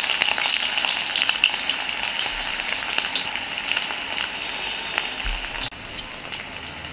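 Chopped onions frying in very hot mustard oil in a kadai on full heat: a steady, loud sizzle with scattered spattering pops. The sizzle eases slowly and drops to a quieter level for about the last second.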